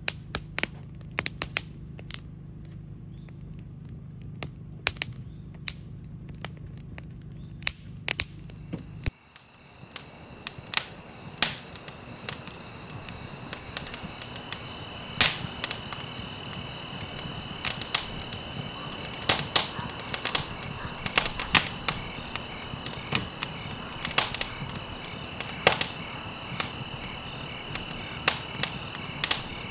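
Wood campfire crackling, with sharp irregular pops. From about nine seconds in, insects keep up a steady high chirring behind it.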